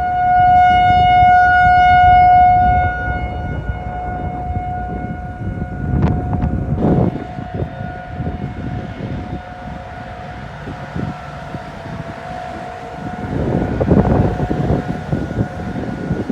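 Federal Signal 2001 rotating tornado siren sounding a steady tone, loud for the first few seconds and then fading to a weaker level as it turns away, over a low rumbling noise.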